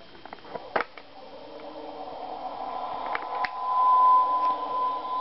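Flight Control TARDIS toy playing one of its electronic sound effects through its small speaker: after a click about a second in, the sound swells into a steady tone, loudest near the end.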